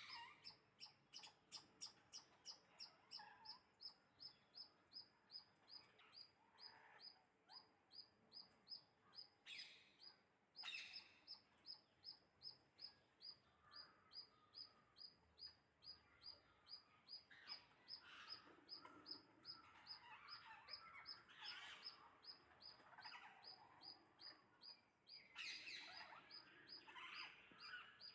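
Faint bird chirping: a high chirp repeated very regularly, about two or three times a second, with softer, lower chirps scattered among it.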